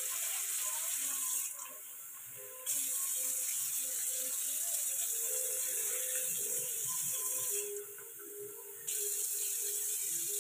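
Soya chunks frying in a steel kadai, sizzling with a steady hiss as water is poured in from a glass to start the gravy. The hiss cuts out abruptly twice, for about a second each time.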